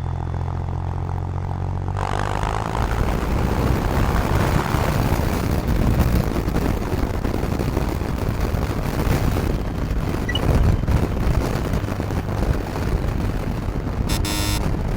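Motorcycle engine running with an even low hum, then from about two seconds in a steady rush of wind over the microphone with the engine rumbling under it as the bike rides. A brief rattly burst comes near the end.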